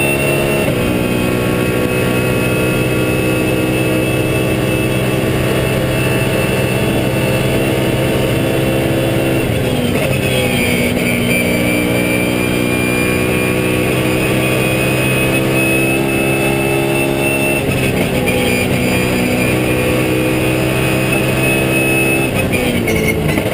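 BMW Z4 GT3's 4.4-litre V8 racing engine running hard at high revs, heard from inside the cockpit, with a steady high whine above it. The engine pitch changes with gear changes about a second in and near eighteen seconds, and falls away around ten seconds in.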